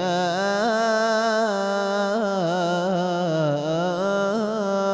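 A single male voice chanting an ibtihal, an Islamic devotional supplication: one long, drawn-out melismatic vowel on 'yā', its pitch winding up and down in small ornaments.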